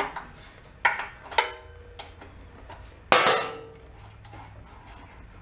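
Hand tools clinking against metal while the carburetor float bowl is taken off a rototiller's small engine: four sharp clinks, the loudest about three seconds in with a short metallic ring, then quiet handling.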